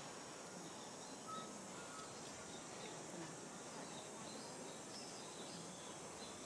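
Faint steady outdoor background noise with a few short, high chirps scattered through it.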